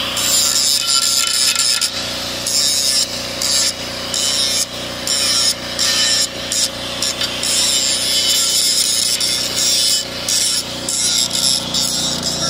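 Corded angle grinder grinding the steel of a disk harrow's frame, its harsh grinding noise coming and going in short stretches as the disc is pressed on and eased off, over the steady hum of the running motor.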